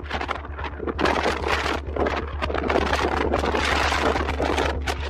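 Strong wind buffeting the microphone in irregular gusts, with a vehicle's steady low hum underneath.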